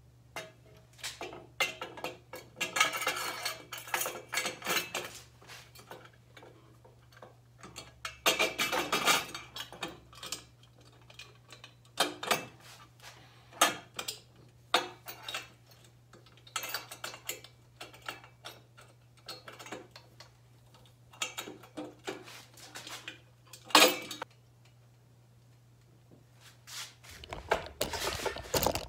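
Loose metal hardware and parts clinking and rattling as they are handled and sorted through. The sound comes in several bursts with scattered knocks, and there is one sharp clank near the end. A steady low hum runs underneath.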